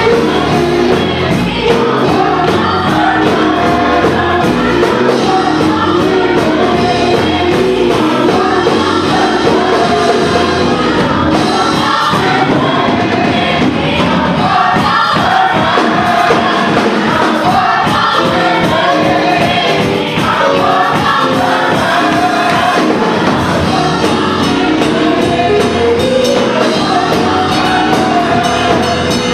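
Gospel choir singing with a live band: many voices over drums with a steady beat.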